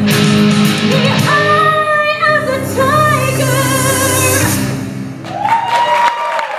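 Rock music with a singing voice and guitar for a stage dance number. The music stops about four and a half seconds in, and a held voice note and the first claps of applause follow.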